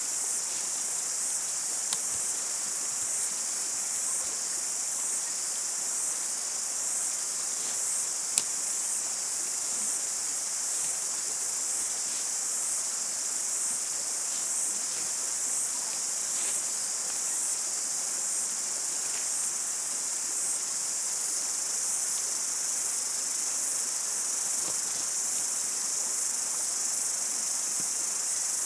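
Steady, high-pitched chorus of insects with a faint regular pulse. Two short, sharp clicks come through it, about 2 and 8 seconds in.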